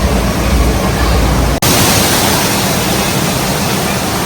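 Loud, steady rushing of water, like a waterfall or water-park slide outflow, with a brief dropout about one and a half seconds in.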